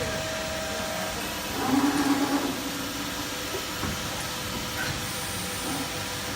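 Electro-hydraulic CNC servo press brake running: a steady hum and hiss from its hydraulic drive, with a louder surge lasting about a second, a little under two seconds in.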